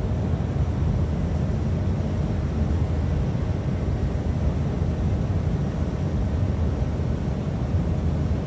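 Steady low rumbling noise with no distinct events, such as wind on the microphone.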